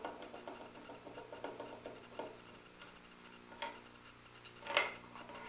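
Hand screwdriver backing a small screw out of the hardware on a cedar chest, a run of small scratchy ticks and squeaks. Then two sharp knocks, the second louder, as the wooden box is handled on the bench.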